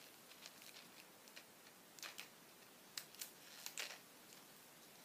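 Faint snips of scissors cutting open a small candy package: a few soft clicks, mostly between two and four seconds in.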